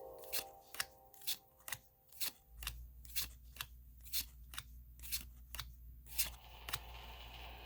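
Pokémon trading cards being flipped through one at a time, each card sliding off the stack with a short swish, about two a second, stopping near the end.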